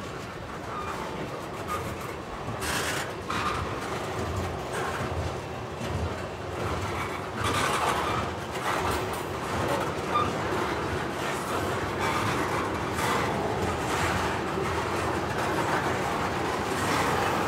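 Freight train tank cars rolling past on steel wheels: a steady rumble with irregular clacks and knocks as the wheels cross rail joints.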